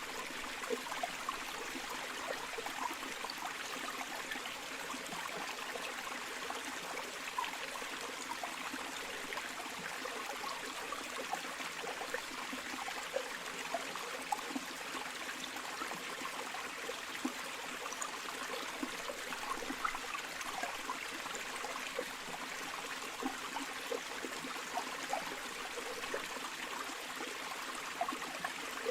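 River water flowing steadily over stones, a continuous rushing hiss with small splashes and gurgles scattered through it.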